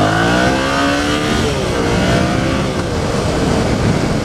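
Yamaha FZ-07's parallel-twin engine revving hard under full acceleration, strong enough to lift the front wheel. The pitch climbs, drops back about a second and a half in, climbs again and falls near three seconds, with wind rushing over the helmet-mounted microphone.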